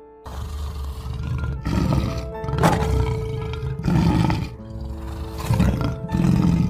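Lion roaring and growling in about five loud bursts over soft background music.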